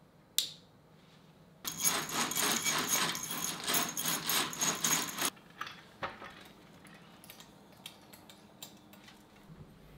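A single sharp click, then a dense metallic jangling rattle of small metal objects being shaken or handled for about three and a half seconds. Scattered faint clicks and taps follow.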